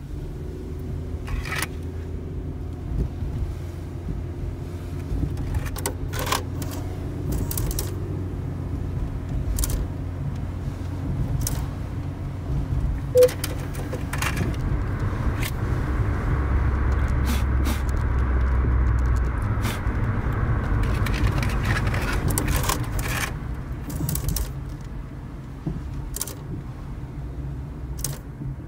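Volkswagen car heard from inside the cabin while driving: a steady engine and road hum, with the keys on the ignition jangling and small rattles and clicks scattered throughout. The road noise grows louder for several seconds in the middle, then settles.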